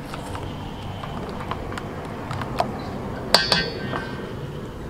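Silicone spatula stirring thin flour batter in a stainless steel bowl, with light clicks against the bowl. About three and a half seconds in comes a sharper clink with a brief metallic ring.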